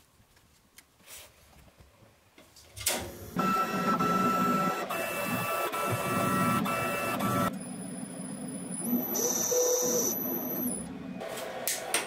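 A few faint keyboard clicks, then, about three seconds in, the DIY CNC lathe starts moving under computer control: its motors run with a steady whine and mechanical rattle. The sound changes about halfway through and stops about a second before the end.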